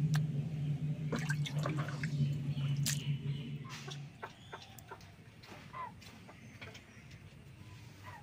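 Wet goat meat handled in a bamboo basket, with water dripping and splashing and scattered clicks over a steady low hum. After about four seconds, hens clucking softly.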